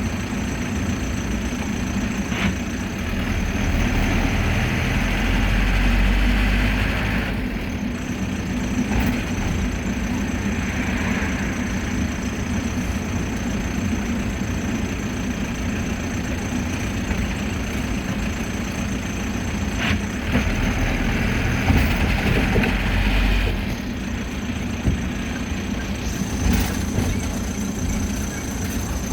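Mercedes-Benz T1 minibus heard from inside the cabin, its engine running as it drives, with steady road noise. The engine note swells twice, and there are a few short knocks or rattles.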